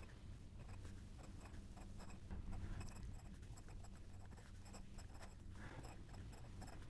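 Glass dip pen nib scratching faintly across notebook paper in short strokes as a word is handwritten, over a steady low hum.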